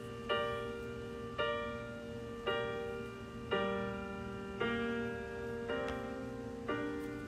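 Piano playing slow block chords, one struck about every second and left to ring, the bass note stepping upward over the last few chords.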